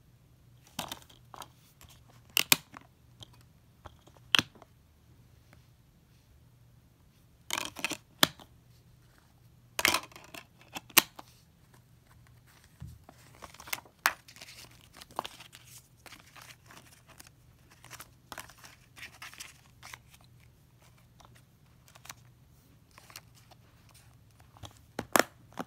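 Plastic Blu-ray case being handled: irregular clicks and snaps with short rustles as the discs and paper insert are moved, a few snaps sharper than the rest.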